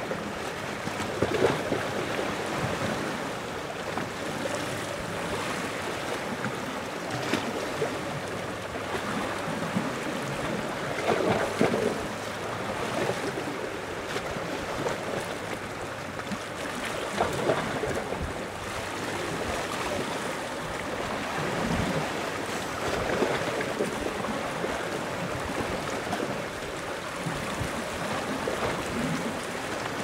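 Gentle ocean waves washing onto the shore, swelling every five or six seconds over a steady wash.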